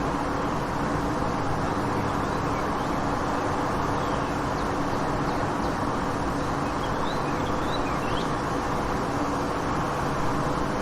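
Daytime city street ambience: a steady wash of traffic noise with a constant low hum, and a few faint high bird chirps in the middle.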